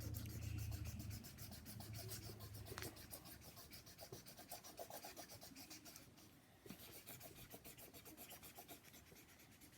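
Faint, rapid back-and-forth scratching of colouring in a drawing by hand, the drawing tool rubbing quickly over the surface.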